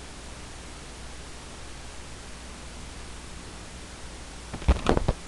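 Steady hiss, then a quick run of about four sharp knocks in under half a second near the end.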